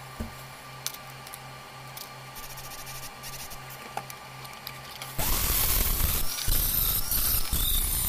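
A few light clicks as the small metal model part is handled. About five seconds in, a flexible-shaft rotary tool with a small abrasive disc starts grinding the metal part, giving a loud, harsh rasp with a squealing edge.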